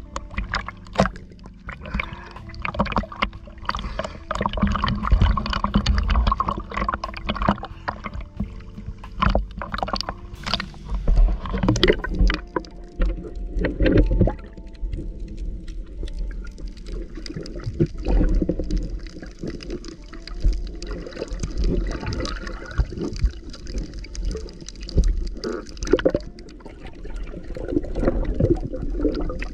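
Sea water sloshing and gurgling against an action camera at and below the surface, with many irregular knocks and splashes.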